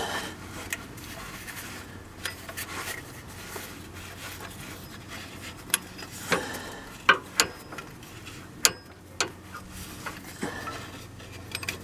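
Hand work on a serpentine belt drive: a ratcheting wrench on the belt tensioner and a new belt rubbed into place over the pulleys, giving scattered metal clicks and knocks over a soft rubbing. The sharpest clicks come in a cluster past the middle.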